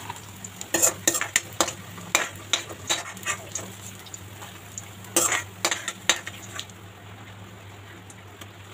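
A steel spoon scraping and clinking against a metal kadai as fried onion slices are lifted out of hot oil, which sizzles. The scraping stops about two-thirds of the way through, leaving a faint steady sizzle.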